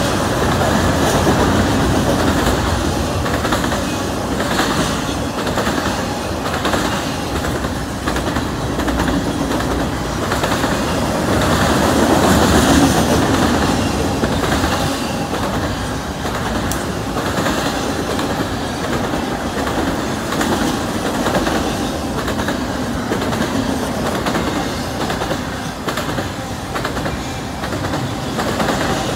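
Double-stack container cars of a CN intermodal freight train rolling past, a steady rumble with the clickety-clack of steel wheels on the rails.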